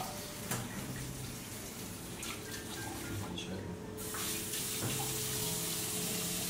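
Kitchen tap running into a stainless steel sink, a steady splashing hiss that grows stronger about four seconds in as the flow is turned up.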